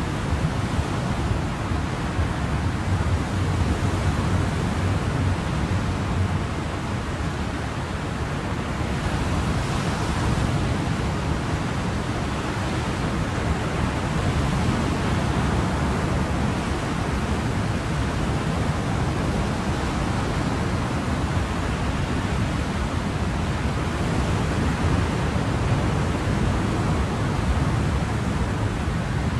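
Ocean surf: a steady wash of waves, easing slightly and building again, with no breaks.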